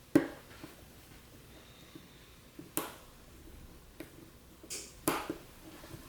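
Sharp clicks and knocks from small camera-lens parts being handled on a work surface. The loudest comes just after the start, with others near three and five seconds and a short scrape just before the last.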